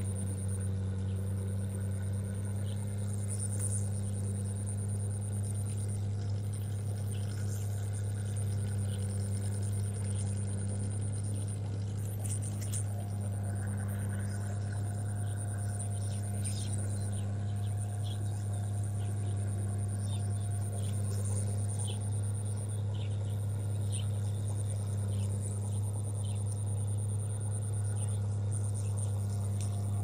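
A steady low machine drone at constant pitch, with faint short bird chirps scattered over it.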